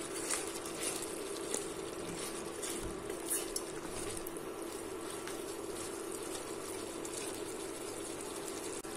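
Duck curry simmering in a stainless steel pot, a steady quiet bubbling hiss, with a few faint knocks of a wooden spoon stirring it.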